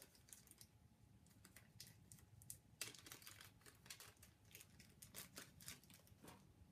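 Faint handling noise: scattered light clicks and plastic crinkling as a small quarter-inch headphone adapter is taken from its bag and turned over in the fingers.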